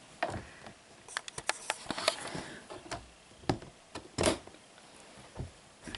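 Scattered light clicks and taps of handling at a reptile cage's sliding glass front and frame, about a dozen in all, the strongest around three and a half and four seconds in.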